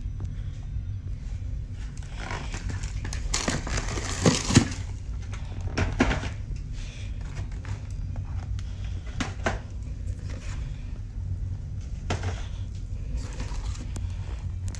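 Packed items being handled in a soft carry-on bag: cardboard snack and soda boxes and a toiletry pouch of bottles rustling and knocking in short bursts, loudest about four seconds in, over a steady low hum.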